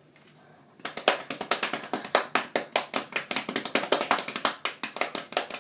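A fast, uneven run of sharp hand taps, starting about a second in and going on without a break.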